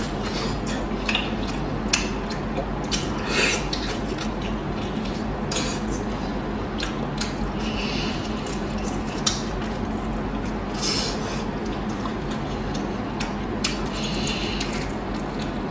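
Close-miked eating sounds: wet chewing and squishing, with many short clicks of utensils against a dish.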